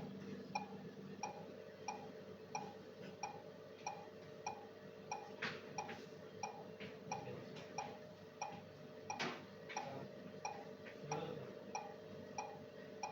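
Mechanical ventilator cycling an artificial test lung in volume control mode. A steady hum runs under a short, even tick about one and a half times a second, with two louder clicks about four seconds apart near the middle.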